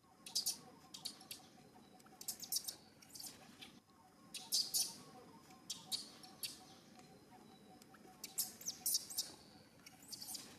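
Small birds chirping: short, high-pitched chirps in quick clusters, repeating every second or so.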